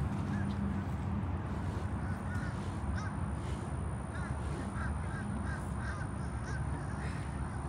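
Short bird calls repeated every second or so over a steady low rumble.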